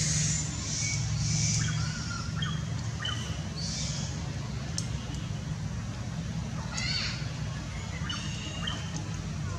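Scattered short, high-pitched chirps and squeaky animal calls, with one louder stacked call about seven seconds in, over a steady low hum.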